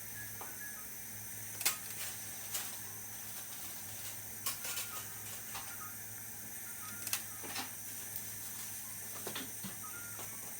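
Dental treatment sounds: a steady hiss with a thin high-pitched whine from the operatory equipment, and about ten sharp scattered clicks of metal instruments on the tooth.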